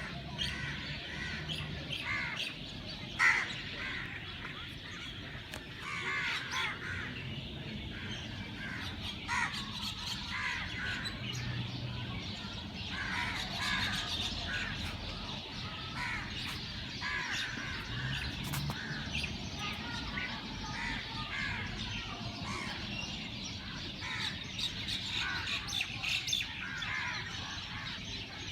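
Many birds calling at once, a busy chorus of short chirps and calls, with one louder call about three seconds in.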